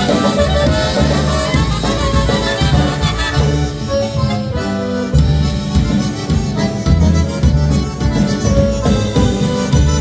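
Polka band playing live: piano accordion and concertina, clarinet, two trumpets and electric bass, with a bouncing bass line under the melody.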